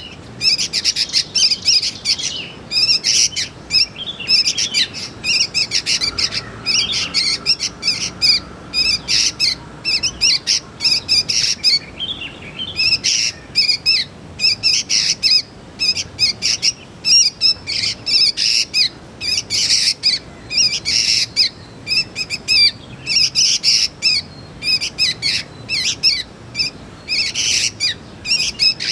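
Young sooty-headed bulbul calling: rapid runs of short, high chirps in quick bursts separated by brief pauses.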